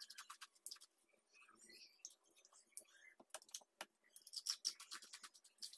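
Faint, irregular crunches and clicks of ice, as ice is chewed and small pieces are picked from a metal plate.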